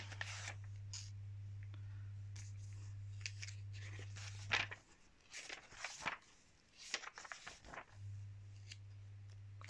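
Glossy magazine pages turned and handled by hand: a series of short paper rustles and flaps, the loudest about four and a half seconds in. Under them runs a steady low hum that drops out for about three seconds in the middle.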